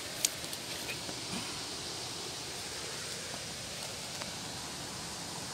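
Steady hiss of outdoor background noise with no distinct source, and two small clicks just after the start.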